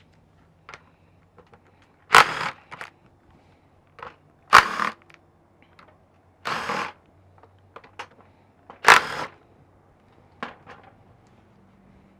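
Cordless Makita 18V impact driver with a socket, hammering in four short bursts about two seconds apart as it undoes the bolts holding a plastic fan to a viscous fan clutch hub. There are light clicks between the bursts.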